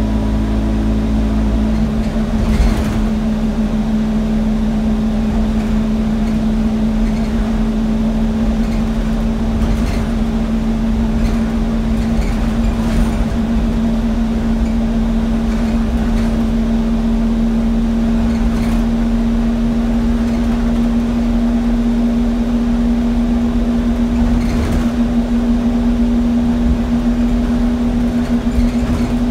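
Alexander Dennis Enviro200 single-deck bus under way, heard from inside the rear of the saloon: the engine and cooling fan drone steadily and loudly, with a few short rattles and knocks from the bodywork, the sharpest about two and a half seconds in.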